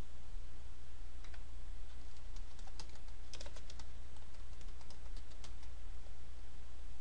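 Computer keyboard typing: a quick run of key clicks starting about a second in and stopping shortly before the end, over a steady low hum.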